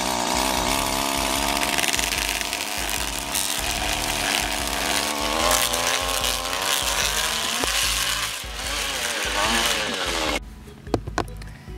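String trimmer running with its spinning head churning through a plastic tub of spaghetti, its motor pitch wavering up and down. It cuts off suddenly near the end, followed by a few clicks.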